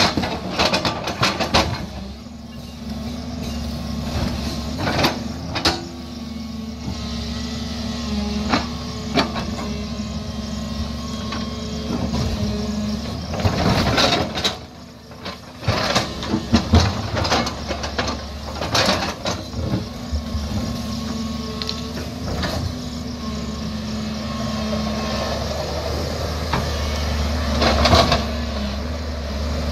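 JCB crawler excavator's diesel engine running steadily under load while its bucket digs into rocky earth, with repeated sharp knocks and clatters of the bucket and stones striking, the loudest near the end.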